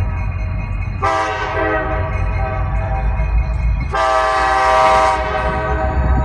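K5LA five-chime air horn on a CSX SD70MAC locomotive sounding: a short blast about a second in, then a longer, louder blast about four seconds in. Under it runs the low rumble of the passing train.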